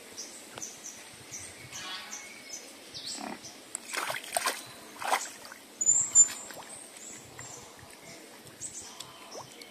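A wild boar grunts as it wallows in a muddy puddle, with a cluster of loud grunts and snorts in the middle. Small birds chirp throughout.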